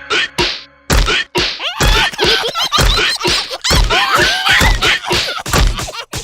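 Cartoon slapstick sound effects: a heavy whack about once a second, six in all, with squeaky wordless voice noises between the hits.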